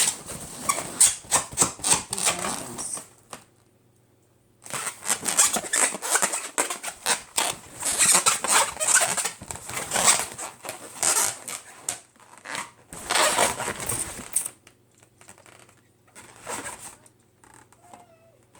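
Balloons handled and crushed by hand: quick runs of crackling and rustling that stop for about a second early on, start again, and fade to faint scraps near the end. There are no single sharp pops.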